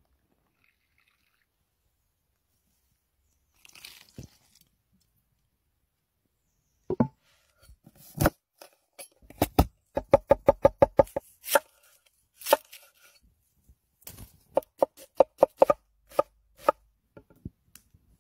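Knife chopping food on a wooden cutting board: sharp, short knocks that begin about seven seconds in, including a quick even run of about five strokes a second, then more scattered strikes.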